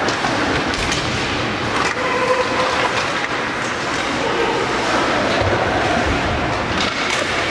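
Ice hockey game noise in a rink: a steady rumble and scrape of play with scattered knocks and distant shouting voices.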